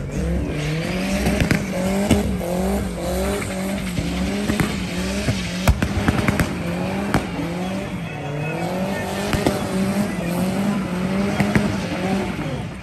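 Chevette with a VW AP engine and crossflow Golf head doing burnout donuts: the engine is held high, its pitch rising and falling in repeated waves as the throttle is worked, over the screech of spinning tyres.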